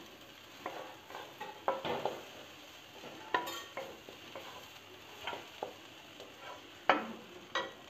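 Wooden spatula stirring and scraping mashed horse gram dal around a metal kadhai as it fries in mustard oil, with a light sizzle. The spatula knocks against the pan at irregular intervals, once more sharply about three and a half seconds in.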